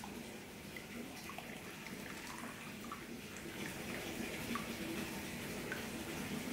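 Liquid gelatin mixture scooped from a plastic bucket with an aluminium jug and poured into a plastic cup: faint splashing and trickling of liquid with small clinks, a little louder in the second half as the pour runs.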